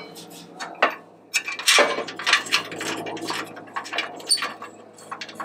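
Light metal clinks, taps and scrapes of bolts being threaded by hand into a truck's steel cross member, irregular, with a busier rattling stretch a little under two seconds in.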